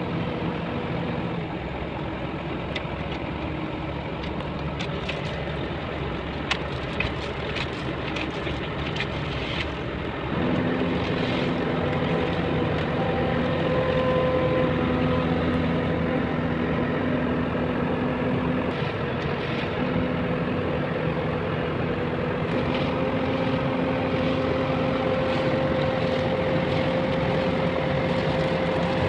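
Heavy construction vehicle engine running steadily, with a few light clicks and knocks. About ten seconds in the engine gets louder and settles into a steady, higher hum.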